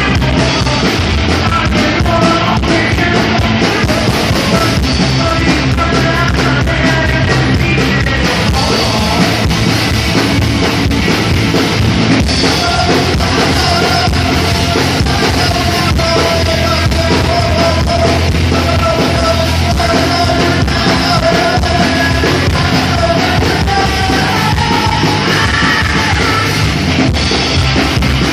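Punk rock band playing live, with drum kit and singing, loud and continuous.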